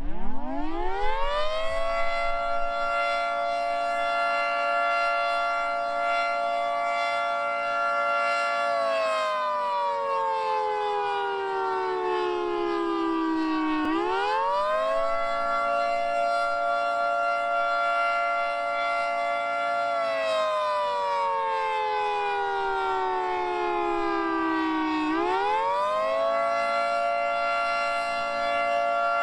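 Federal Signal 2T22 dual-tone mechanical outdoor warning siren winding up from a start to its full chord. It holds for about nine seconds, then slides down in pitch over about five seconds and quickly winds back up, twice: the wailing Attack signal.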